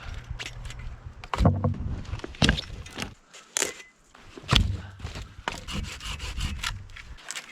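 Firewood being cut by hand: rasping and scraping of a saw on wood, with several sharp knocks.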